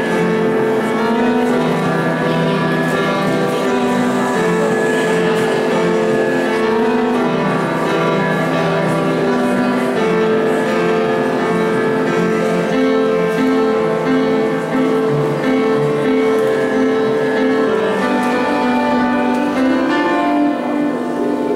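Upright piano played solo: a continuous stream of notes over sustained chords.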